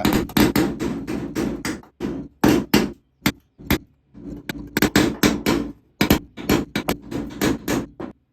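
Steel hammer striking a punch against the Land Cruiser's sheet-steel body, a quick run of sharp metallic blows, about two or three a second, with a few short pauses: flattening the torn spot-weld remnants left after the old panel was removed.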